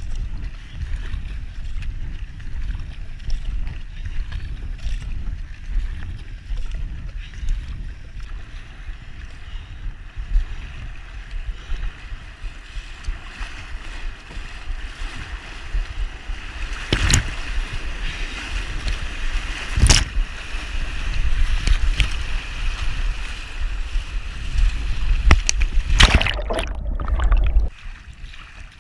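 Water rushing and splashing around a K1 racing kayak paddled through rough, choppy river water, with wind rumbling on the microphone. The water noise grows louder in the second half, with a few sharp splashing hits, and the wind rumble cuts off abruptly near the end.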